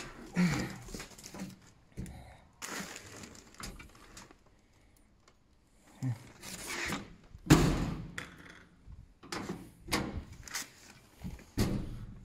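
Irregular knocks, thuds and clatter of things being handled and moved about, the loudest thud about seven and a half seconds in, with a quiet pause in the middle.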